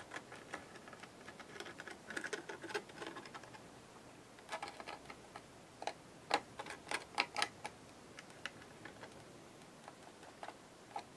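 Faint, irregular clicks and ticks from a plastic squeeze bottle of paint being squeezed through its fine nozzle onto a paper butterfly, with a run of sharper clicks in the middle.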